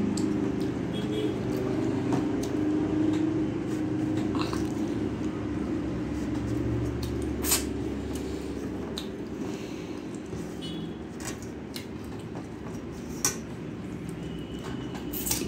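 Eating by hand from a steel plate: fingers squishing and mixing rice and curry, and chewing, with a few short sharp clicks of fingers or nails against the plate. A steady low hum lies under it throughout.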